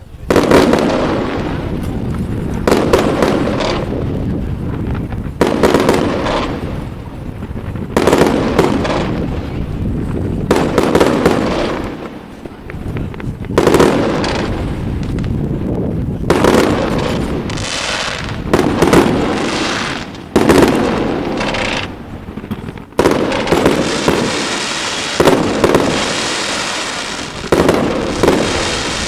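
Fireworks display: aerial shells bursting in a string of loud bangs, one every second or two. About three quarters of the way through, a long spell of dense crackling sets in under the continuing bangs.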